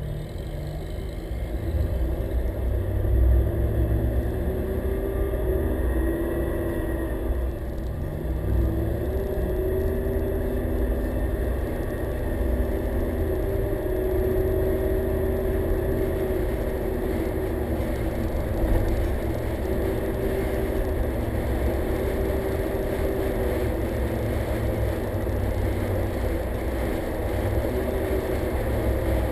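A car driving slowly through city traffic, heard from a camera mounted on its hood: a steady low rumble of engine, road and air, with an engine tone that rises and falls every few seconds.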